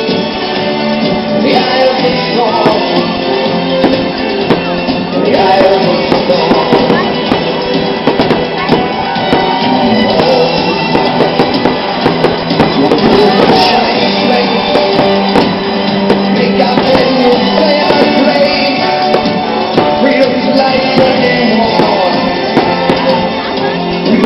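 A song with a singer and a band playing loudly and steadily.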